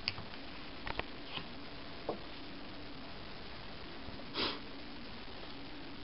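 Faint handling noise from small objects being picked up and moved: a few light clicks in the first two seconds and one short soft rush of noise about four and a half seconds in, over a steady low hum and hiss.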